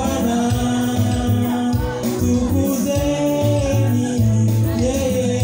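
Gospel song performed live: a man sings into a microphone over an amplified accompaniment with a pulsing bass line and a steady beat.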